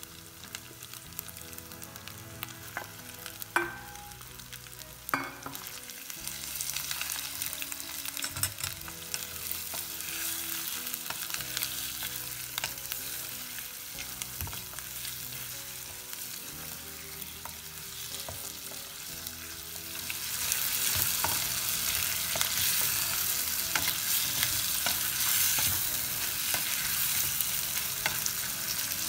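Food frying and sizzling in hot oil in a pan while it is stirred, the sizzle growing louder about twenty seconds in. Two sharp knocks come about three and a half and five seconds in.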